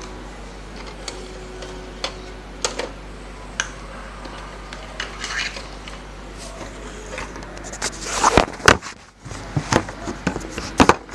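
Slime being handled and squeezed, giving scattered small clicks and crackles that grow busier and louder over the last few seconds.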